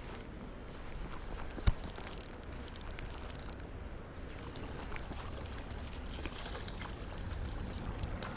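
A single sharp click about two seconds in, followed by a quick run of rapid high clicks lasting a second and a half, over a low steady outdoor rumble.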